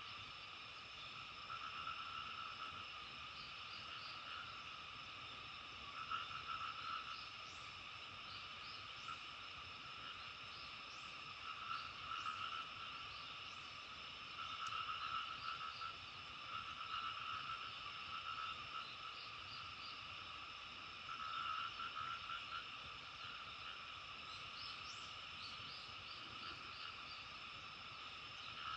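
A chorus of frogs calling, with pulsing, croaking trills about a second long coming again and again over a steady high background chorus. Brief faint high chirps are scattered through it.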